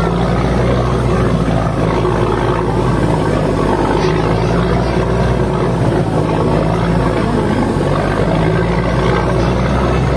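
Steady drone of a passenger boat's engine, heard on board, with water and wind rushing past.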